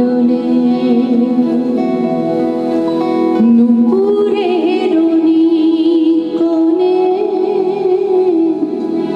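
A woman singing a slow Bengali song in long, wavering held notes, accompanied by a harmonium she plays herself.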